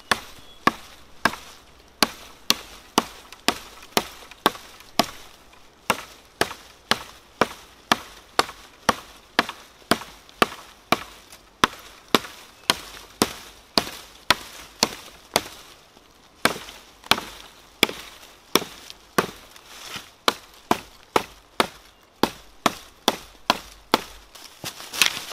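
Small hatchet chopping into a thin wooden branch with short, light strokes, about two a second, each a sharp crisp knock.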